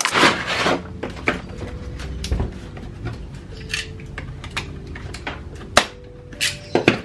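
Cardboard packaging rubbing as a hard plastic tool case is slid out of its box sleeve, followed by a utility knife slitting the seal on the case seam. Scattered clicks and knocks of the plastic case being handled on a table, with a sharp click about six seconds in and a few more near the end.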